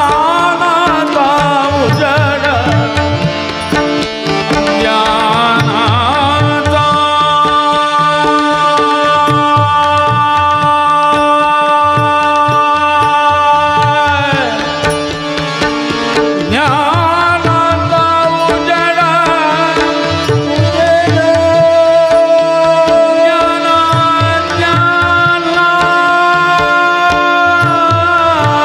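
Male classical vocalist singing a devotional Marathi abhang with long held notes and ornamented runs, over steady tabla strokes and sustained harmonium tones.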